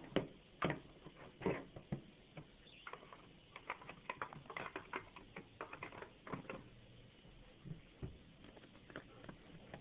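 Cockatiels moving about on a hard plastic surface among small toys, giving irregular light taps and clicks from beaks and feet, with a few sharper knocks.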